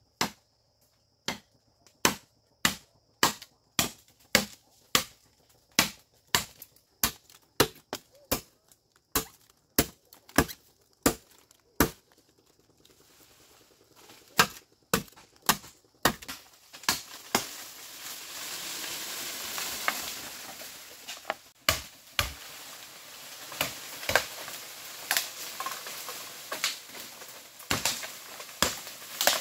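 Chopping at bamboo: a run of sharp, evenly spaced blows, about one and a half a second, for the first twelve seconds. After that the blows come less often and a rustling hiss swells under them.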